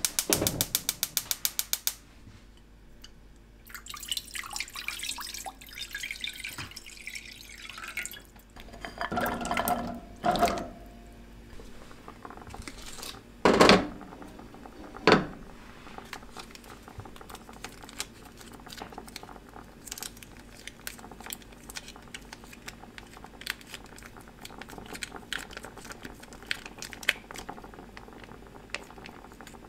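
Rapid, even clicking for about two seconds. Then water and soaked rice cakes are tipped into a frying pan, splashing and pouring for several seconds, followed by two sharp knocks. After that comes a low, steady hiss with faint light ticks as the pan heats.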